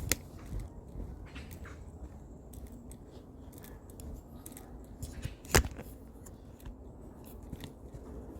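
Footsteps and rustling from someone walking with a handheld camera: irregular small clicks and crackles over a low rumble, with a sharp knock at the start and a louder one a little over five seconds in.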